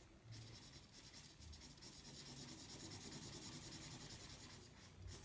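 Faint scratching of a felt-tip marker rubbed back and forth on paper while colouring in, a little louder in the middle.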